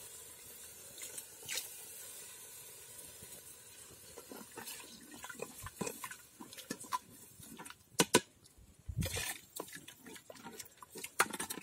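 Ladle stirring a thin, watery masala curry in an earthen pot, with scattered scrapes and clicks and a couple of sharp knocks of the ladle about eight seconds in; water has just been added to the ground masala.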